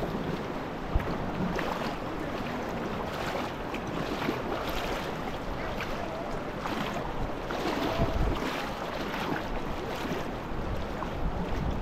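Steady rushing noise of wind and moving water, with faint irregular knocks and splashes.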